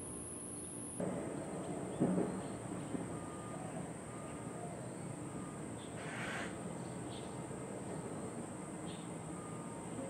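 Steady high-pitched drone of insects such as crickets, with a few faint short bird notes. A dull thump comes about two seconds in, and there is a brief rustle-like burst about six seconds in.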